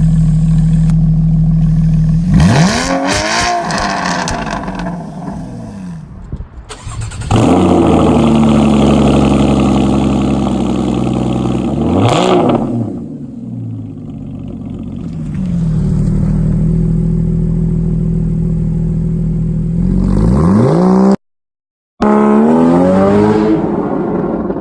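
Straight-piped 2.7-litre flat-six of a 2013 Porsche Boxster 981 idling and being revved several times, the revs climbing and falling back. Sharp pops and crackles come from the exhaust as the revs drop after the first blips.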